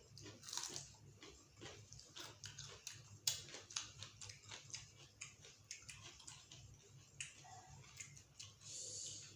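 Close-up eating sounds: irregular chewing, lip-smacking and soft clicks of mouths and utensils, with a short hissing sound about nine seconds in, over a steady low hum.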